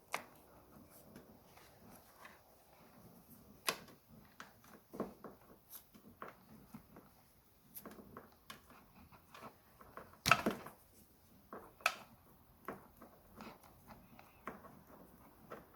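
Sparse clicks, taps and small knocks of hands handling electrical wire and tools while insulating a wire joint, with a sharper knock about ten seconds in.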